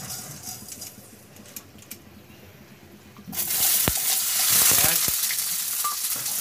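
Sugar sprinkled into hot oil in a kadai, with a faint hiss. About three seconds in, sliced onions drop into the oil and a loud, steady frying sizzle starts, with a couple of sharp knocks against the pan.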